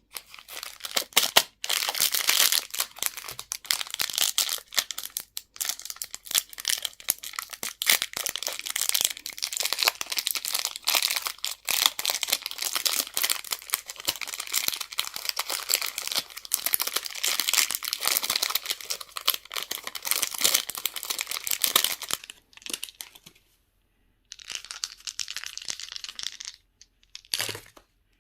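Candy wrappers crinkling and tearing as sweets are unwrapped close up: dense, continuous crackling for about twenty seconds, then a pause and a shorter, softer rustle near the end.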